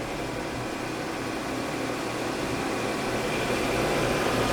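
Woodmaster 3875 drum sander running with no stock in it, its 5 horsepower Leeson motor giving a steady hum that grows slightly louder.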